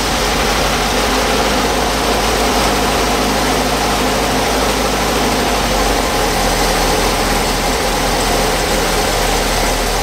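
Engine idling steadily, a dense, unchanging running sound with a low hum.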